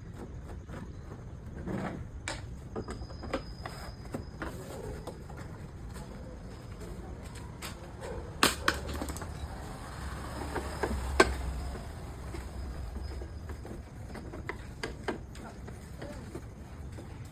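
Scattered clicks and knocks of tools and scooter parts being handled while the scooter is taken apart. The sharpest come as two close together about halfway through and one a few seconds later, over a steady low hum.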